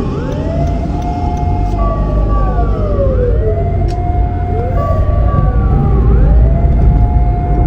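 Fire engine siren wailing, each cycle rising quickly and then falling slowly, about every three seconds, with a steady higher tone between the glides. A constant low rumble of vehicle engine and road noise lies underneath.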